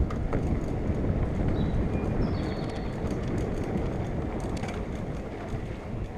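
Mountain bike riding over a dirt trail: steady wind rumble on the action camera's microphone and tyre noise, with frequent small clicks and rattles from the bike over rough ground.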